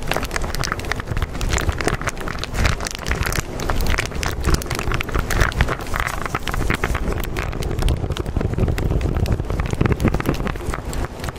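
A continuous rushing noise with a deep rumble and dense crackling throughout, a nature-like sound bed of the kind laid under subliminal affirmations.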